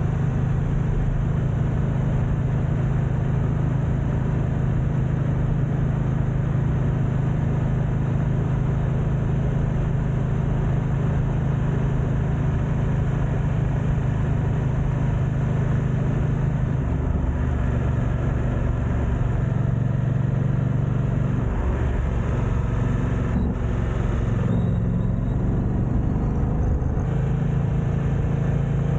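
BMW F900XR's 895 cc parallel-twin engine running steadily under way, with wind noise over the camera microphones. About halfway through, the engine note shifts up and down, and near the end it rises as the bike accelerates.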